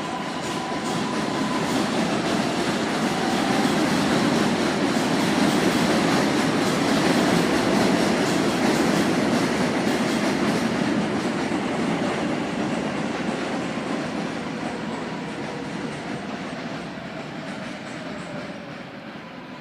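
A New York City subway train running past. It grows louder to a peak about a third of the way in, then fades away, with a faint whining tone over the rail noise.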